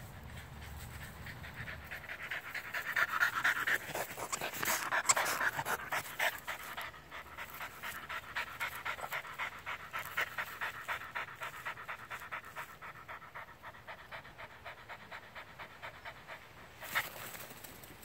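French Bulldog panting hard after running, about four breaths a second, loudest in the first few seconds.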